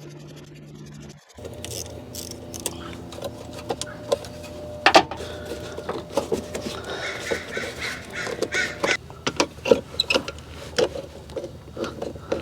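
Hand tools clicking and knocking on the air intake tube's hose clamps as they are loosened, a run of sharp irregular clicks and clinks. A bird calls several times in the background partway through.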